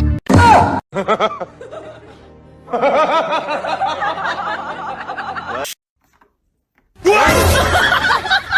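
Laughter and voices mixed with music, broken by about a second of silence before another burst of voices and noise begins.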